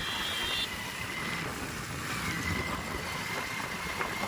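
Motor vehicle running along the road: steady engine and road noise, with a faint high whine.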